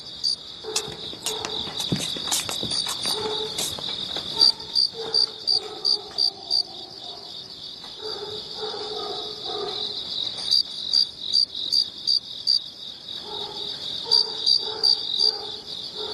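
Crickets chirping steadily, a continuous high trill with louder chirps coming in runs of about two or three a second.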